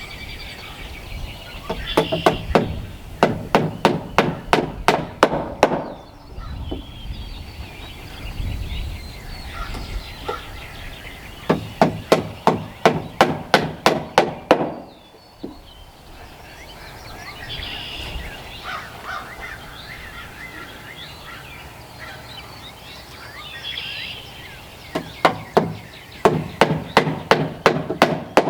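Hammer blows on nails in three runs of rapid, even strikes, about three a second, each run lasting a few seconds and stopping abruptly. Birds call between the runs.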